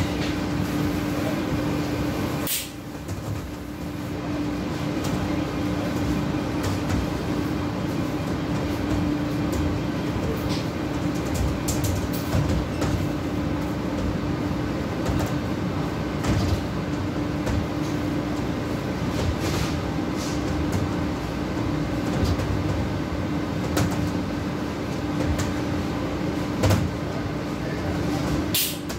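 Steady hum of fast-food kitchen equipment with a constant tone, broken by scattered clicks and knocks of kitchen work. A sharp click comes about two and a half seconds in, and the hum drops briefly after it.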